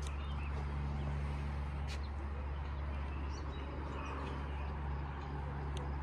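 Faint bird chirps over a steady low hum, with a couple of brief clicks.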